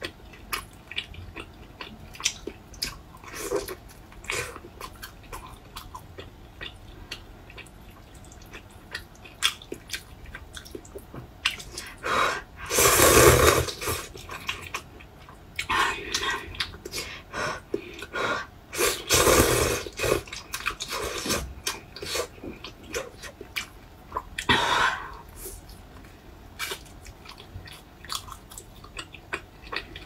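Close-miked eating: wet chewing and lip smacks on a pan-fried bun, with a few louder, longer slurps of noodles in the middle.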